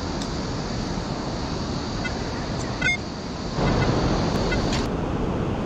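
Steady wind and surf noise on a beach. Just before the middle there is a short sharp sound, and from a little past halfway the noise swells louder.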